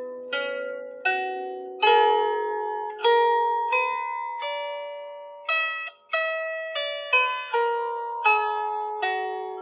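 Lyre harp played note by note: single plucked strings ringing and fading, often overlapping, in a slow melody with a short break about six seconds in.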